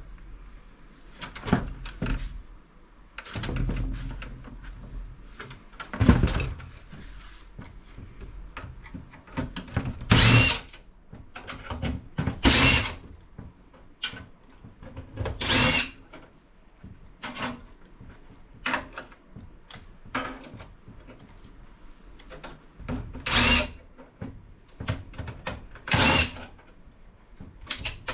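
Repeated short bursts of a cordless drill/driver whirring as screws are run out of a PC case, with clicks and knocks of metal parts being handled in between.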